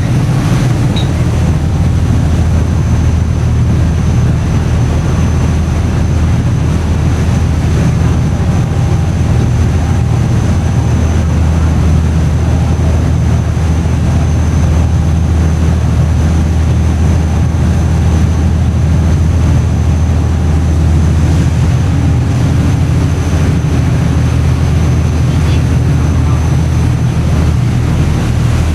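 Passenger ferry's engines droning steadily at cruising speed, heard on board, with a rushing haze of water and wind over them and a faint steady high whine.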